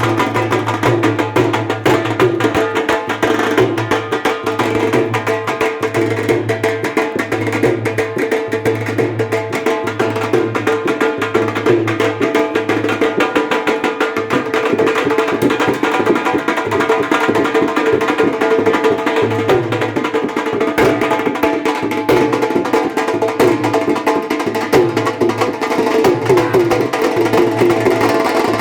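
Music with a steady, repeating drum beat and percussion over sustained melodic tones.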